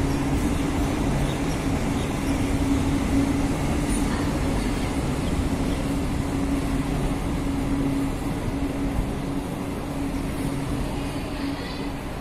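Electric MEMU multiple-unit train running past the platform as it pulls out of the station: a steady low hum over broad rolling rumble, easing off over the last few seconds.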